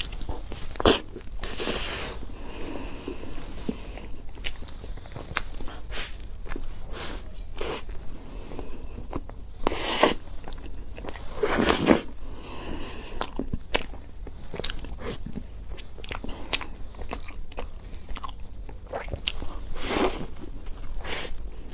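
Close-miked eating: a person biting into and chewing a large soft cream-filled pastry, with wet mouth sounds and soft crunches. A few louder bites stand out, at about two, ten, twelve and twenty seconds in.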